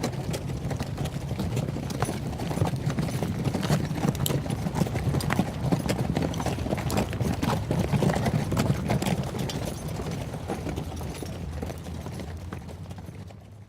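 Horse hooves clip-clopping in a dense, irregular run of hoof strikes over a low rumble, fading out near the end.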